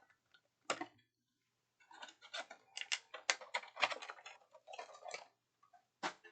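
Quick, irregular clicks and light clatter of small hard items being handled, packed most densely between about two and five seconds in, with a single click near the start and another near the end.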